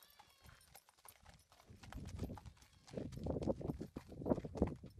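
Hoofbeats of a saddled horse walking on packed dirt, irregular footfalls that grow louder from about two seconds in.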